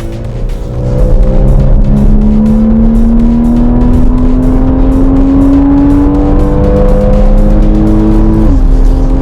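Car engine pulling steadily under acceleration, its pitch slowly rising for several seconds, then dropping abruptly near the end as at a gear change. Electronic music with a steady beat plays over it.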